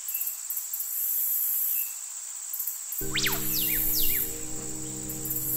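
Insect chorus: a steady high trill with pulsing swells of higher buzzing. About halfway through, a sustained low music pad comes in, with a few quick whistling pitch sweeps above it.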